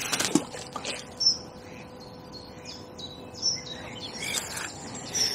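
Small songbird chirping, short high notes repeated every second or so, with a couple of sharp clicks near the start and about a second in.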